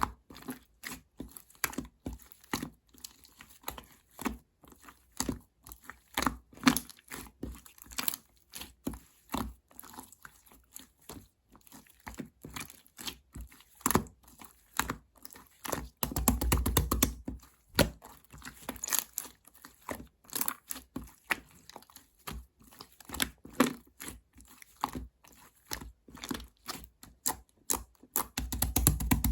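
Close-up handling sounds: a dense run of small clicks, taps and crinkles, with a longer, louder rustle about sixteen seconds in and again near the end.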